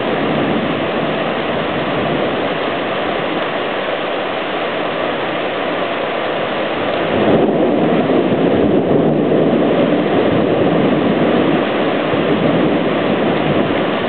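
Floodwater rushing steadily through a normally dry drainage creek, a dense continuous wash of noise that grows louder about seven seconds in.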